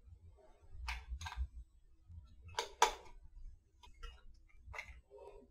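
Small metal clicks and taps as a metal clamp plate and its machine screws are handled and started by hand: a close pair about a second in, a louder pair near three seconds, then a few lighter ticks.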